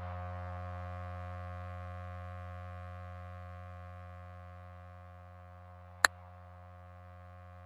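A low electronic buzzing drone that starts abruptly, fades a little over the first five seconds and then holds steady, with a single sharp click about six seconds in.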